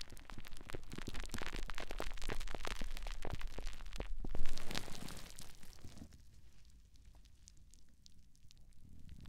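A sponge being rubbed and squeezed right against a microphone, giving dense close-up crackling and squishing. It is loudest about four and a half seconds in, then goes softer and sparser for a few seconds before picking up again at the end.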